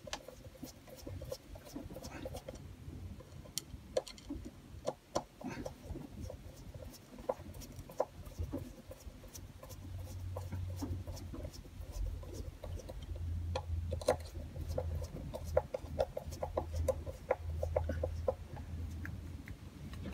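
A screwdriver driving small screws into the fuel shut-off valve cover on a Honda GX120 carburettor, with scattered light clicks and scrapes of metal on metal. A faint low hum joins about halfway through.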